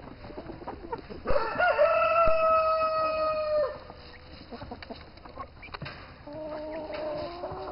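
A rooster crows once, a long call of over two seconds that rises briefly and then holds on one pitch before cutting off. Fainter, lower chicken calls follow near the end.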